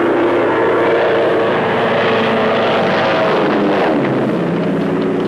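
Low-flying propeller aircraft engine droning steadily. Its pitch drops about three to four seconds in as the plane passes.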